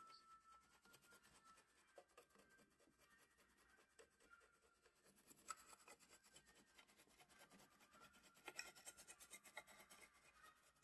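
Faint scraping and rubbing of a utensil working through mashed potatoes in a bowl, a little louder near the end.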